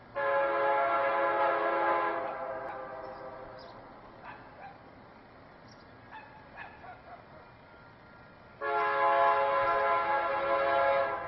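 Union Pacific SD70M diesel locomotive's air horn sounding two long blasts of a multi-note chord for a grade crossing: the first lasts about two seconds and trails off, the second starts about eight and a half seconds in and is still sounding at the end.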